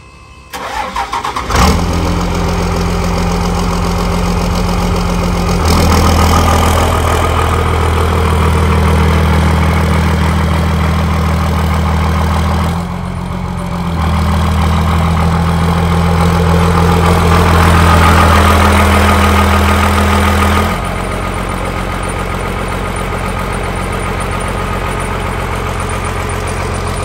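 First-generation Dodge Ram pickup's engine starting about a second in, then running with its exhaust out of a hood stack. It runs louder for a stretch in the middle while the truck moves, dipping briefly once, then settles back to a steady idle for the last few seconds.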